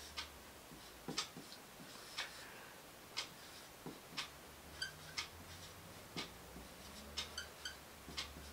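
Faint clock ticking once a second, with quieter squeaks and rubs of a marker writing on a whiteboard between the ticks.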